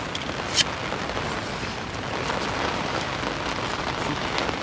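Steady rain falling on a fishing umbrella overhead, with one sharp tick about half a second in.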